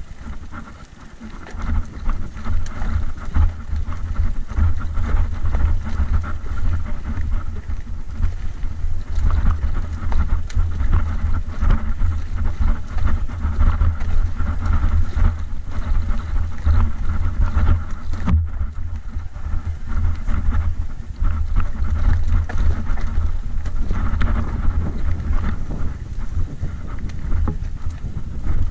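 Mountain bike descending a rough, rocky dirt trail, recorded on a bike-mounted action camera: steady wind buffeting the microphone with continuous rattling and clattering of the bike over stones.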